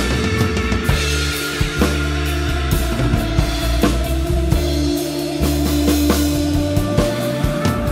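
Instrumental improvised psychedelic space-rock: a drum kit playing steady hits over held bass notes and sustained guitar and electronic tones.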